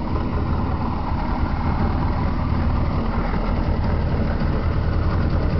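Small fishing boat's engine running steadily with a low rumble.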